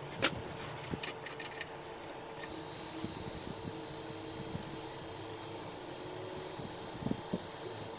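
A few light plastic clicks and taps as a 3D-printed motor mount is fitted over a lead screw on top of a plunge router. About two and a half seconds in, a steady high-pitched hiss with a faint whistle starts suddenly and becomes the loudest sound.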